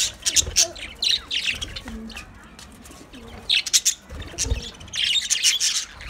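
A flock of budgerigars chattering: rapid, high, overlapping chirps in busy bursts, with a quieter spell in the middle.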